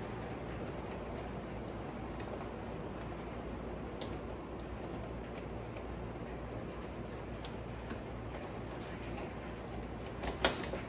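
Sparse light clicks and taps of small metal parts of a Wilesco model steam traction engine's wheel and drive assembly being handled and turned by hand, over a steady hiss, with a few louder clicks near the end.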